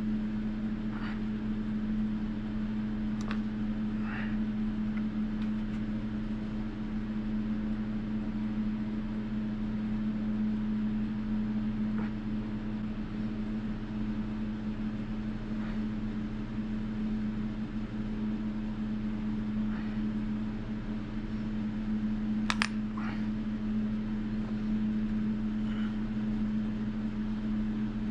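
Steady low mechanical hum with an even pitch, with a few faint clicks of tools and clay on a wooden board; the sharpest click comes about three-quarters of the way through.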